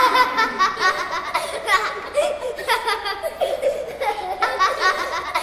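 Children laughing and giggling in quick, repeated bursts, as if playing in the water.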